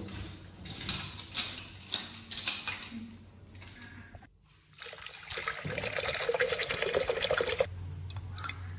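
Steel dishes being washed under a running kitchen tap, with utensils clattering against each other. After a brief lull, water pours steadily into a metal pot for about three seconds and then cuts off suddenly.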